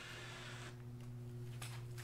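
Quiet workshop room tone: a steady low hum, with a few faint light clicks as a hand handles the vinyl-covered bunk board.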